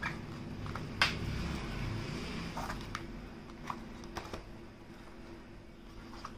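Hands handling a rigid black cardboard perfume gift box: a sharp click about a second in, then scattered light taps and rustles as the box is opened and the bottle is lifted from its lined insert.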